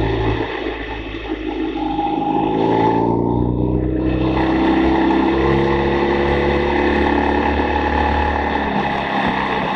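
A BMW R 1200 GS boxer-twin engine running hard at track speed, heard from a camera mounted on the bike. The revs ease briefly about three seconds in, then rise steadily.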